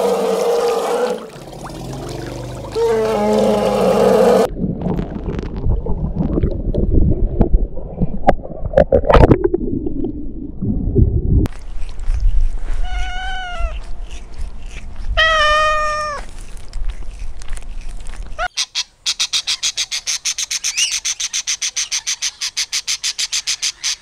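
Domestic cat meowing twice, each call rising then falling in pitch, about halfway through. Low rustling comes before the meows. From about two-thirds of the way in, a fast, even, high-pitched pulsing takes over.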